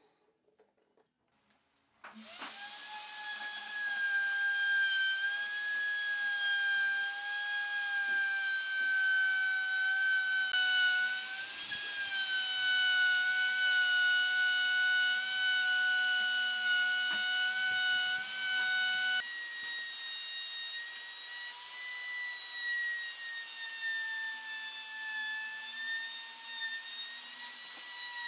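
Electric plunge router (DCA) running at speed as its bit cuts a groove into a solid-wood beam, a steady high whine that starts about two seconds in. The whine shifts slightly in pitch twice, stepping higher near the end.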